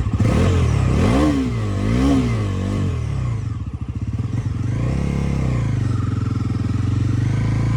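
Bajaj NS400Z's 373 cc single-cylinder engine running, blipped up and down twice in quick succession, then revving up again and settling to a steady run.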